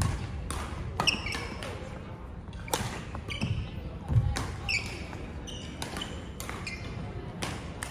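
Badminton play in a large echoing sports hall: sharp racket-on-shuttlecock hits and court-shoe squeaks on the wooden floor, with a heavier footfall thump about four seconds in.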